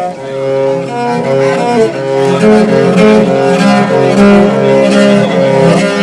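Viola playing a slow melody of bowed, held notes, often two or more notes at once.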